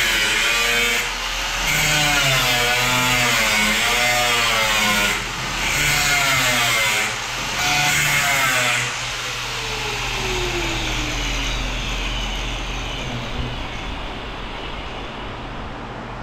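Angle grinder cutting into the steel quarter panel of a 1962 Chevrolet Impala, its pitch wavering under load and easing off the metal three times. About nine seconds in it is let off and its whine falls as it spins down.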